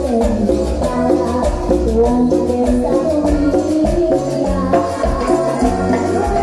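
Live cumbia band playing, with electric bass, timbales and the steady scrape of a metal güiro under a moving melody.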